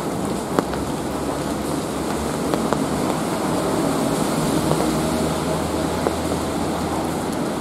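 Steady rain falling in a city, with the low rumble of traffic underneath that swells a little in the middle, and a few sharp ticks of drips.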